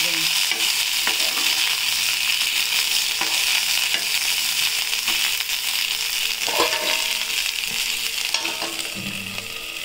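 Small eggplant pieces frying in hot oil in a steel kadhai: a steady sizzle, with the scrape and tap of a steel ladle stirring them. A single louder metal clink comes about two-thirds of the way through.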